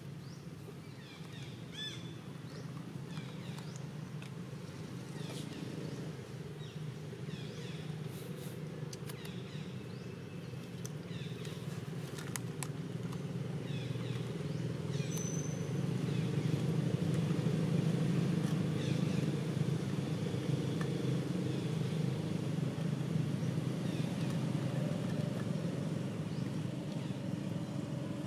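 A motor vehicle engine running steadily in the background, growing louder through the middle and then holding, with faint scattered high chirps above it.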